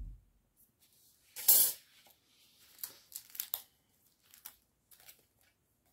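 Handling noise from craft cutting dies and their packaging: one louder tearing-like rustle about a second and a half in, then a few small clicks and rustles.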